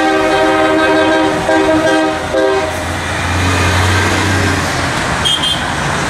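Tractor-trailer air horn blowing a long, chord-like blast, broken briefly a couple of times and stopping a little under three seconds in, over steady heavy highway traffic. Afterwards a truck's low engine drone passes underneath.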